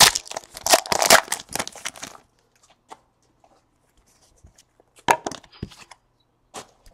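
Trading-card packaging crinkling and tearing for about two seconds, followed by a few light taps and clicks as cards are handled.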